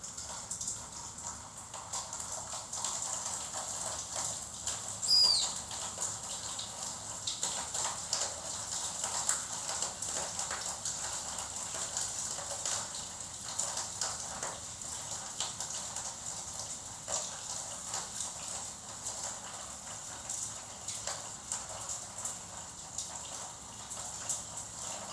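Gouldian finches in a cage: many irregular light ticks and taps, with one short falling whistle call about five seconds in, the loudest sound.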